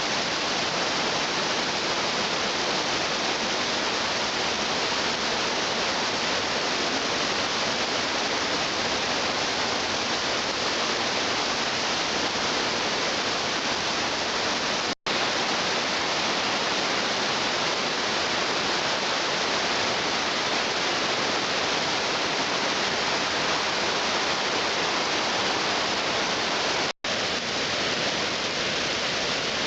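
A waterfall's steady rush of falling water, cut off for an instant twice, about halfway through and near the end.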